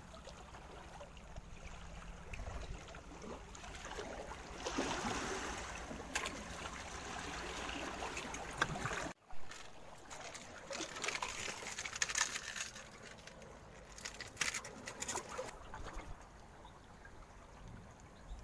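Seawater trickling and lapping among rocks, with scattered short clicks and rustles of handling.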